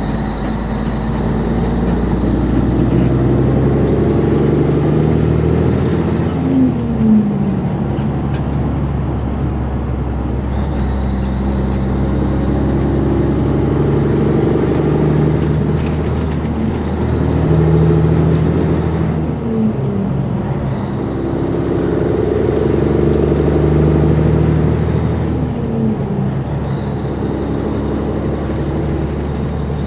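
Cabover Peterbilt semi-truck's diesel engine, heard from inside the cab, pulling hard under load and working up through the gears: the engine pitch climbs, drops sharply at each upshift, then climbs again, about four times.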